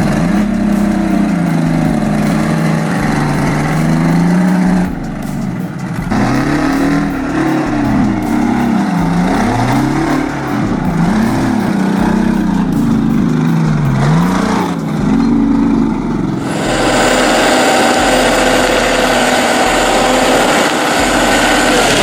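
Engine revving up and down over and over, its pitch rising and falling every second or so. About three quarters of the way through it gives way abruptly to a steady, harsher mechanical noise.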